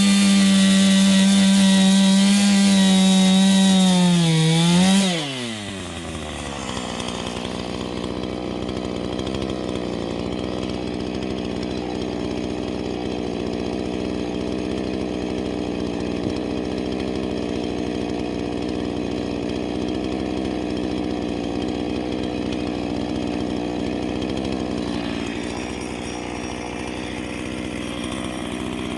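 Chainsaw engine held at high revs, then let off about five seconds in. The pitch falls and it settles to a steady idle for the rest.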